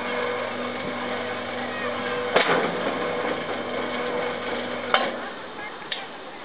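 A small motor whirring steadily, with a click about two and a half seconds in, then cutting off abruptly with a click about five seconds in; another click follows a second later.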